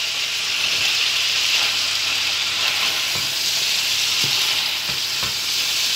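Green beans sizzling in olive oil in a stainless steel pot, being sautéed until they wilt, while a slotted spatula stirs them. A steady hiss, with a few light knocks of the spatula against the pot in the second half.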